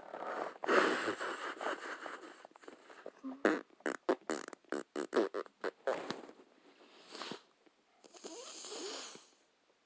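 A person's breathing and throat noises close to the microphone: noisy exhales, a run of short sharp pops in the middle, and a long breath out near the end.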